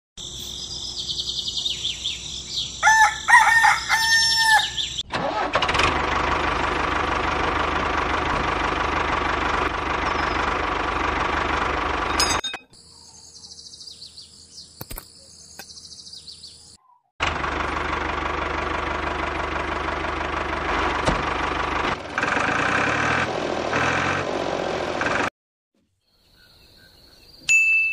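A rooster crowing, followed by a motor running steadily for several seconds. It drops away and then runs again, and a short chime sounds near the end.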